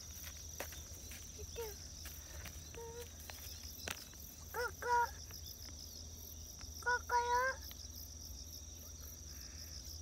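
Steady, high-pitched chorus of insects singing. A toddler's short voiced calls break in twice, about halfway and again around seven seconds in.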